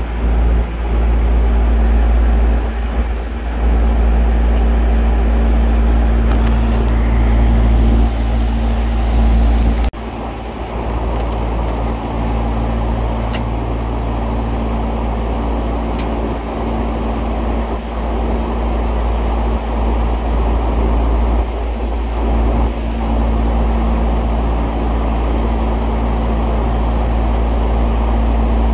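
Steady loud drone of running machinery, with a deep rumble and a low hum. A few light clicks of hand tools come about ten, thirteen and sixteen seconds in.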